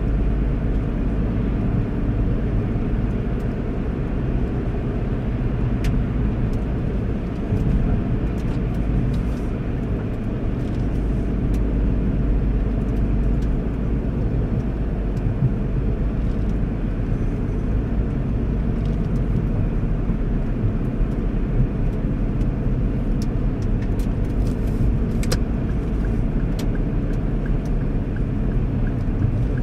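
Steady road noise of a car driving at speed, heard from inside the cabin: a low rumble of engine and tyres, with a few faint ticks.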